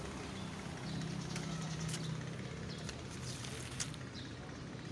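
A steady low engine hum, strongest from about one to two seconds in, with a few faint clicks.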